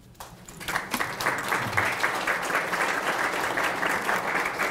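Audience applauding, clapping that starts faintly, builds over about the first second, then holds steady.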